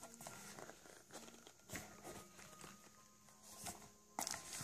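Faint rustling and light clicks of headphone packaging being handled, with louder crinkling of packaging starting near the end.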